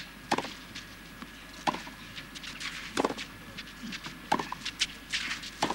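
Tennis ball struck by rackets in a baseline rally on a clay court: five sharp hits about 1.3 seconds apart, with fainter ticks between them.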